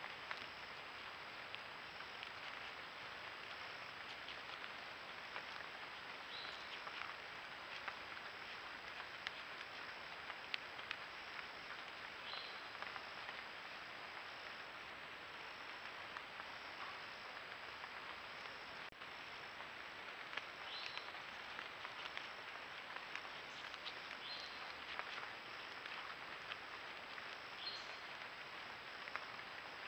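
Night insect chorus in late summer: a steady high insect drone with a short chirp every few seconds, over a steady hiss.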